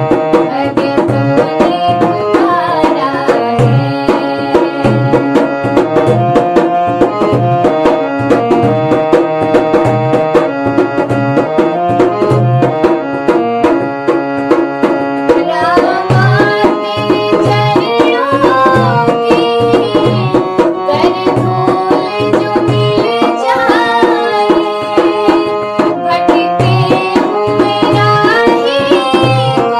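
Devotional Hindi bhajan music: a steady tabla beat under sustained melodic accompaniment. From about halfway a gliding, ornamented melody line comes in on top.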